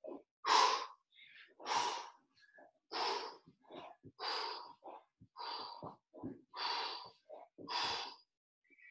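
A man breathing hard from the exertion of mountain climbers: seven forceful exhales, about one every second and a quarter, with shorter, quieter breaths between them.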